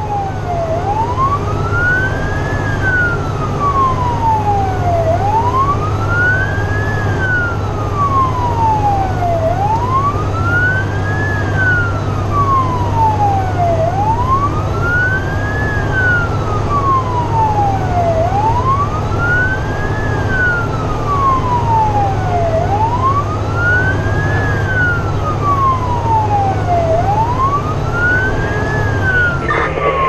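Fire truck siren on a slow wail, rising and falling about every four and a half seconds, heard from inside the cab over the steady drone of the truck's engine.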